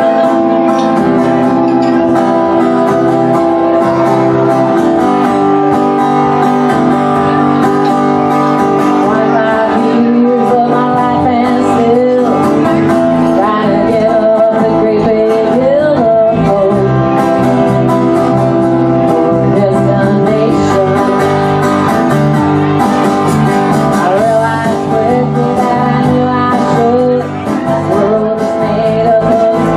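Live band playing a song: a woman sings over a strummed acoustic guitar, an electric bass and a drum kit.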